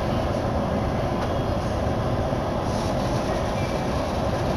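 Steady rumble and hum inside a Keihin-Tohoku Line commuter train car, even throughout.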